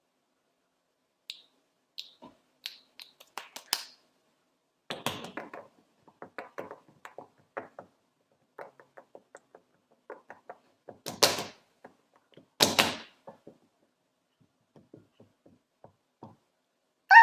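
Scattered light taps and clicks, with two louder thumping knocks about 11 and 13 seconds in.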